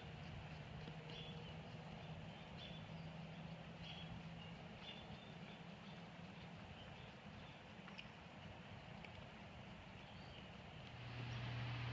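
Faint outdoor dusk ambience: short, high chirps repeating at irregular intervals over a low hum and a soft background hiss. About a second before the end, a louder steady low hum comes in.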